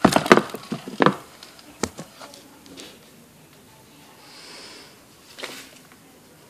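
Packaging being handled and opened by hand: a quick run of rustling and clattering in the first second, a single sharp knock shortly after, then only faint rustles.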